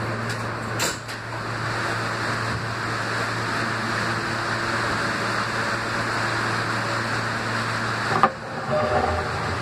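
R160 subway train running through a tunnel: a steady rush of wheel and rail noise over a low hum, with a click about a second in and a sharp knock near the end.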